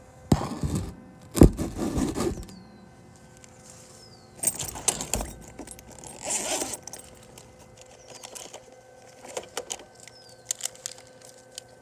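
Metal tools and a multimeter being handled, with jangling and clattering in a few bursts over the first seven seconds, then lighter clicks. A faint steady hum runs underneath.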